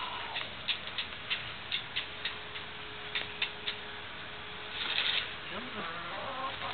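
A hen pecking grain from a hand and off a concrete path: a run of short, sharp, irregular taps, about three a second, then a brief rustle about five seconds in.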